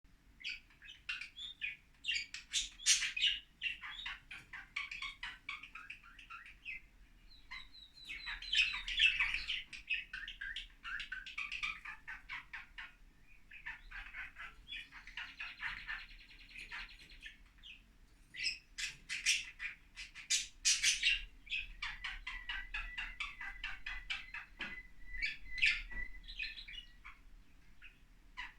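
A pair of budgerigars chattering and warbling in fast, scratchy chirps and squawks, in spells with brief pauses. A buzzy rattle comes about halfway through, and near the end a single held whistle runs under the chatter.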